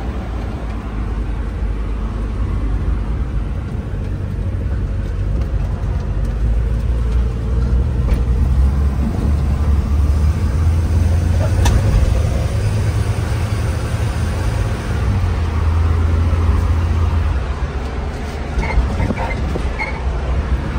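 Interior noise of a Holden HQ Kingswood under way: a deep, steady engine and road rumble that swells louder in a couple of stretches.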